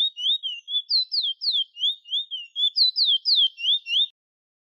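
Chestnut-bellied seed finch, the bird-keepers' 'bullfinch' or towa-towa, singing a fast run of clear whistled notes. Each note is a quick sweep in pitch, at about four notes a second, and the song stops about four seconds in.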